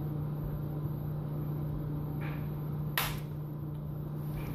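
A steady low hum, with a piece of chicken being rolled in flour in a glass bowl: a faint soft brush a little over two seconds in and one sharp click at about three seconds.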